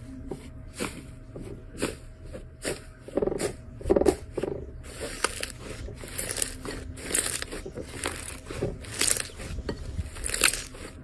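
Slime being squeezed and pressed by hand, giving off irregular crackling, popping and sticky clicking sounds.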